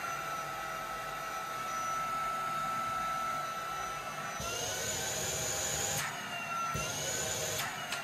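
Trouver Power 11 cordless handheld vacuum's brushless motor running on its lowest suction setting, a steady high whine over rushing air, really quiet. About halfway through, the whine shifts up and the air noise grows, changing again near the end.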